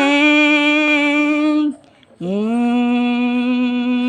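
A person's voice imitating an airplane engine: two long, held 'ngeng' drones. Each slides up in pitch at its start and then holds steady, with a short break about two seconds in.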